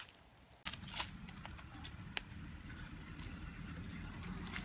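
Bamboo cooking tube being handled and opened: scattered light clicks and knocks, with a low rumbling noise that starts about a second in.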